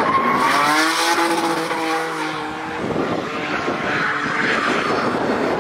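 BMW drift car engine revving up and holding high revs for a couple of seconds. Then tyres skid and hiss as a car slides sideways.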